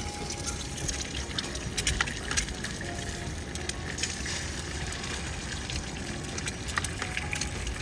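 Eggs frying in hot oil in a cast iron skillet on a propane camp stove: a steady sizzle with many small crackles and pops.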